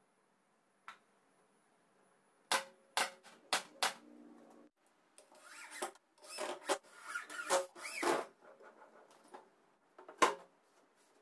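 Workshop handling sounds: four sharp knocks of wood or tools being set down, then a stretch of scraping and rubbing, and one loud knock near the end.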